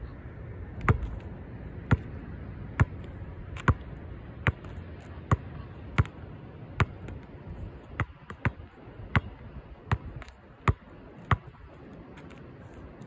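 A basketball bouncing on hard ground in a steady rhythm, about once a second. The bounces stop near the end.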